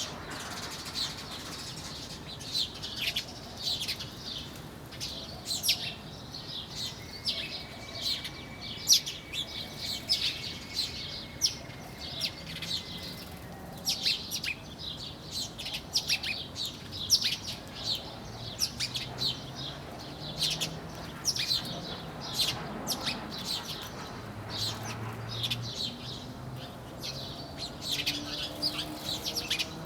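Many small birds chirping in a dense, continuous chatter of short high chirps, with one long thin steady note held for several seconds about a quarter of the way in.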